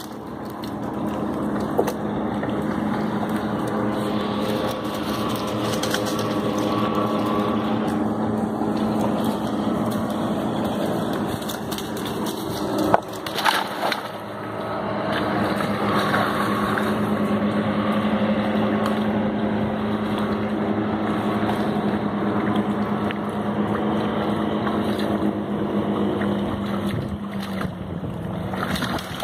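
Motorboat engine droning steadily as it passes on the river, with a loud splash about halfway through as a dog leaps off a log into the shallows.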